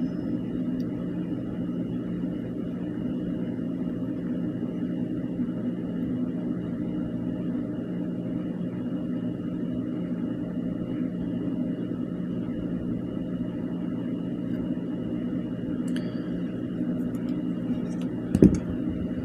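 A steady low mechanical hum with a faint high whine over it, and a single knock near the end.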